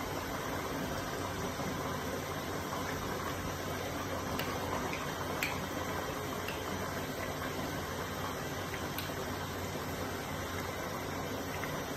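Steady running hum and hiss of a petrol generator, with a few faint clicks in the middle.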